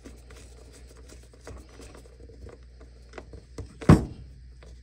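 Screwdriver tightening a terminal screw on a battery: a run of small clicks and scrapes, with one sharp knock near the end, over a low steady hum.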